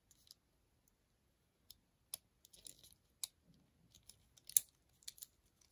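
Faint plastic clicks and small handling noises as a hinged plastic Bakugan toy, a BakuFlip Aquas Spindle, is folded shut into its ball shape, with the sharpest click about four and a half seconds in.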